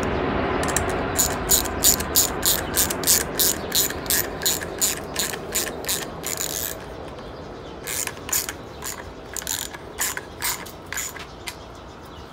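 Socket ratchet clicking in quick, even strokes, about three clicks a second, as it tightens the T-bolt hose clamp on an intake coupler. It stops briefly about seven seconds in, then goes on with slower, fainter clicks.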